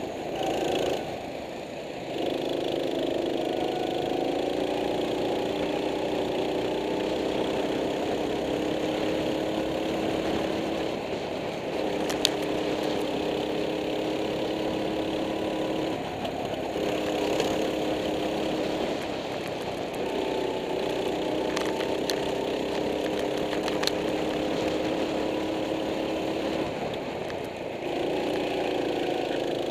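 Go-kart engine heard from on board, climbing steadily in pitch for several seconds at a time and then dropping back, about four times over: the kart accelerating along the straights and easing off for the corners. A few sharp clicks are heard around the middle.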